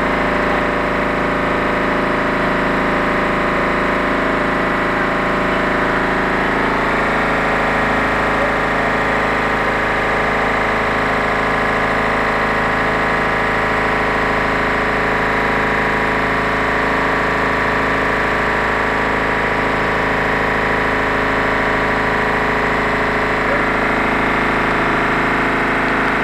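Twin tricot warp-knitting machine running at a steady speed, a dense, even mechanical drone made of many steady tones, its pitch mix shifting slightly about seven seconds in.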